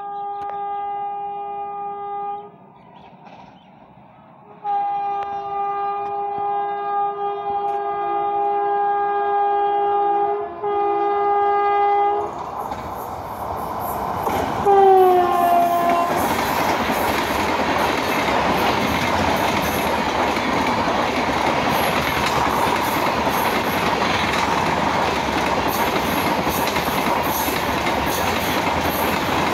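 WAP-7 electric locomotive sounding its horn twice on approach, a short blast and then a long one of about seven seconds, followed by a brief horn that drops in pitch as the locomotive passes. The train's LHB coaches then rush by at about 130 km/h with a steady noise of wheels and air and rhythmic wheel clicks over the rail joints.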